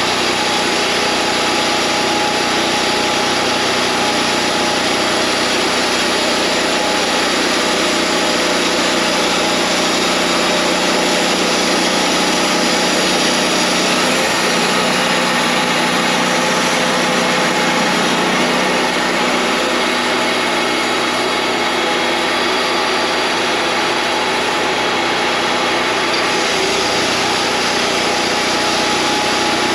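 Wood-Mizer LT40 band sawmill running steadily, its engine note shifting slightly midway and again near the end.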